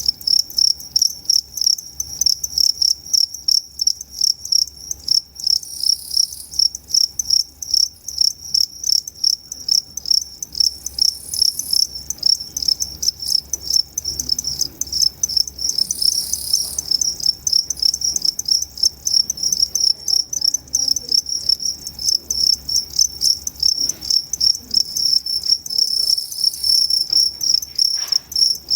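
Two-spotted crickets (Gryllus bimaculatus) chirping steadily, about two to three chirps a second. A brief higher-pitched sound cuts in now and then.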